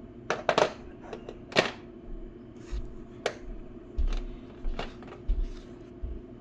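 Metal hand tools clicking and clacking as a wrench is fitted onto and taken off screwdrivers and the tools are handled: about ten irregular sharp clicks, the loudest near the start, with a few low handling thumps.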